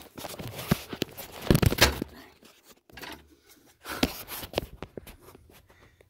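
Handling noise in a small room: irregular knocks, scrapes and rustles, loudest in a cluster of knocks about a second and a half in.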